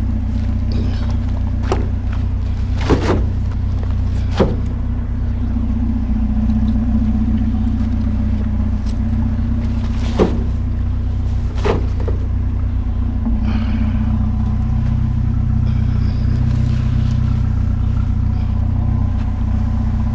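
Vehicle engine idling steadily, with several sharp knocks spread through the first half.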